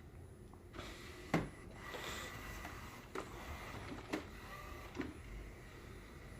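Several sharp clicks and knocks, the loudest about a second and a half in, with a faint mechanical whir in between.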